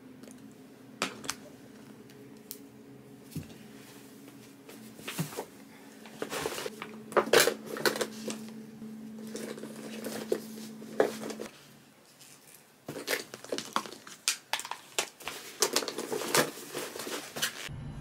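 Makeup being handled and packed away: plastic compacts and cosmetic bottles clicking shut and clattering on a tabletop as they go into a fabric tote bag, in scattered bursts of small knocks.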